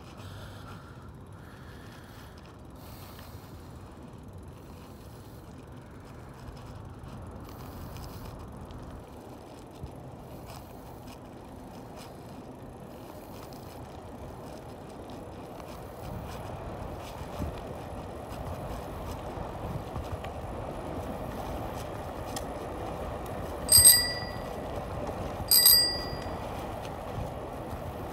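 Bicycle bell rung twice, about two seconds apart near the end, each a bright ring that dies away quickly. Under it, the steady wind and tyre noise of a bike riding along a paved path, growing louder after the halfway point.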